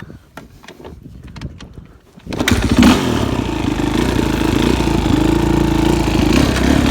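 Suzuki RM-Z450's single-cylinder four-stroke engine catching about two seconds in after a few faint knocks, blipping once, then idling steadily. The rider thinks the idle needs adjusting at the idle screw.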